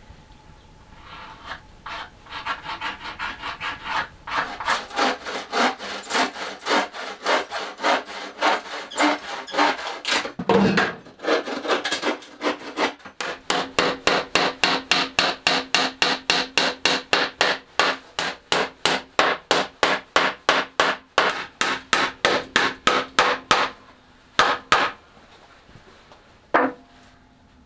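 A hand tool is worked back and forth on a wooden shelf brace in quick, even strokes, about four a second. A heavier knock falls a little before the halfway point. The strokes stop near the end, with one last stroke after that.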